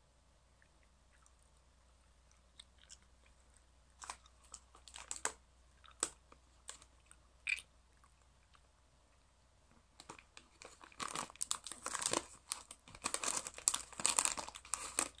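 Scattered small clicks and crunches about four seconds in, then from about ten seconds dense crinkling and rattling as a hand rummages through jelly beans in a clear plastic bag.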